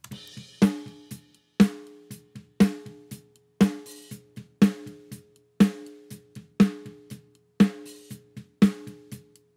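Close-miked snare drum recording played back solo through a mixing EQ as a high-shelf boost is dialled in. A hard snare hit lands about once a second with quieter hits between. Each hit rings on in a steady hum around 424 Hz, the tone the engineer singles out as the snare's humming noise to be cut.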